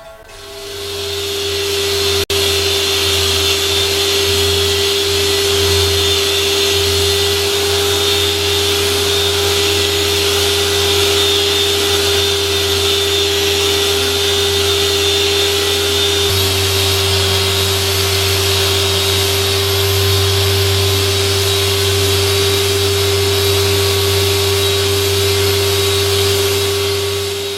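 A power tool running steadily with a constant whine over a broad hiss. It fades in over about a second and out at the end, and its low hum shifts slightly about two-thirds of the way through.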